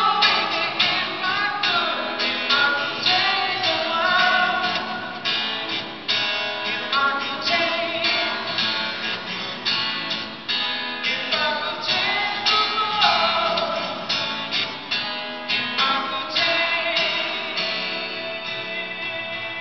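A man singing to his own strummed acoustic guitar, both amplified. Near the end the singing stops and the guitar strumming carries on, growing softer.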